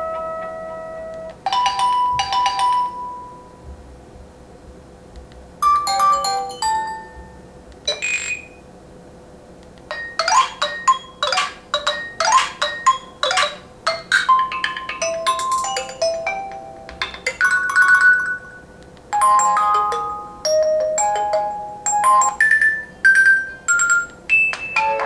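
Nokia 800 Tough phone playing a series of its built-in ringtones and alert tones: short electronic melodies of bright chiming notes, one after another, with brief pauses between them.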